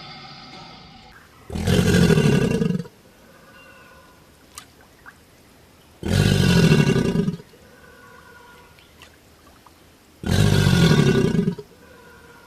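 American alligator bellowing: three low, rumbling roars about four seconds apart, each lasting a little over a second.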